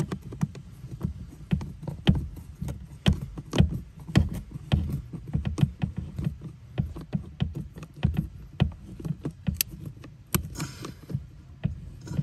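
A Phillips screwdriver tightening the mounting screw of a new blower motor resistor into the plastic heater housing: irregular clicks and knocks of the tool, several a second, over a low rumble of handling, with a short scrape just after ten seconds.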